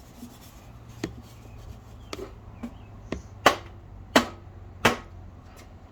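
A series of six sharp knocks from something hard being struck: three faint ones in the first half, then three loud ones about two-thirds of a second apart.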